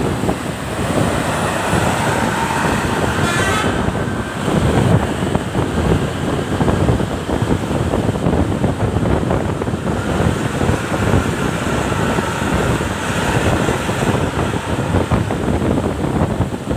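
Intercity bus on the move: a steady mix of engine, tyre and road noise with a rough, buffeting rumble.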